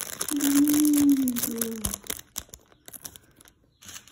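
Thin plastic packet crinkling and rustling as it is worked open, loudest in the first two seconds, with a held hum over it that falls slightly in pitch. After that only faint, scattered clicks and rustles.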